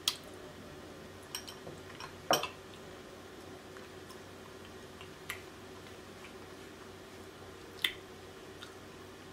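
Close-miked eating sounds of a person chewing a spoonful of red beans and rice: a few short, separate mouth clicks, the loudest about two seconds in, over a faint steady hum.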